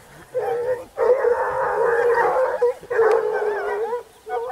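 A pack of scent hounds baying on a hare's line, several voices overlapping in long drawn-out cries. The cries come in three bouts with brief gaps, then a short cry near the end.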